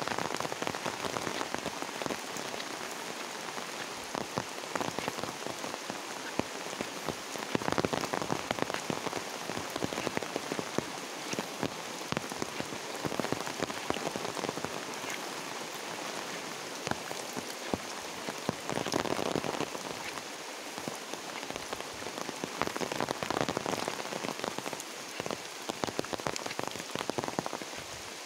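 Steady rain, with many separate drops ticking close by; it swells briefly a few times.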